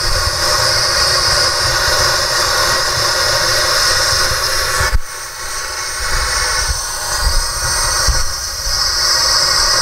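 Steady, loud rush of air flowing through a pressure suit's ventilation hoses into the suit and helmet, which are inflated to about 2 psi. A click comes about five seconds in, and the rush is a little quieter after it.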